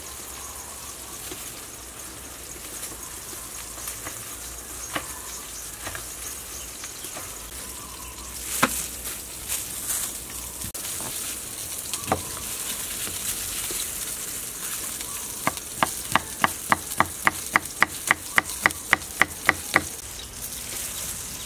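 Salmon sizzling in a frying pan on a gas burner, a steady hiss. Near the end comes a quick run of sharp, regular taps, about four a second.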